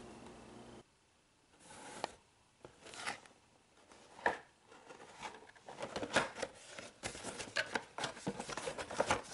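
Packaging of a boxed diecast model car being handled and opened: rustling, scraping and light clicks. They come sparsely at first and get busier about halfway through.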